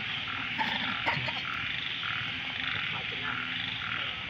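Chorus of frogs calling, with croaks repeating about twice a second over a steady high hiss.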